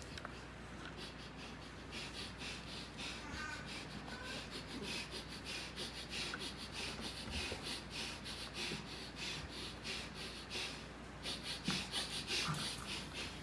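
Rapid series of short rubbing or scratching strokes, several a second, coming in bursts.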